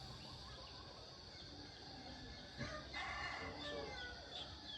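A rooster crows faintly once, about two and a half seconds in, over quiet outdoor ambience, followed by a few short high bird chirps.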